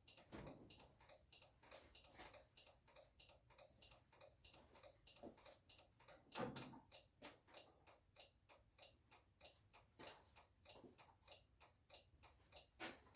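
Faint, steady ticking of a turn-signal flasher relay, about three to four clicks a second, with a few louder knocks in between.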